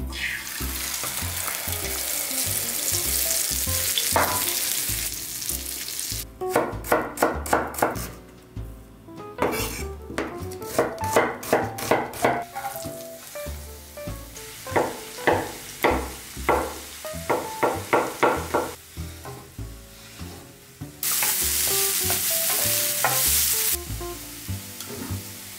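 A flour-and-egg-coated minced-pork cutlet sizzling as it goes into hot oil in a frying pan. Then a knife chopping onion on a wooden cutting board in quick runs of strokes, about four a second. Near the end, sliced mushrooms and onion sizzle in a pan.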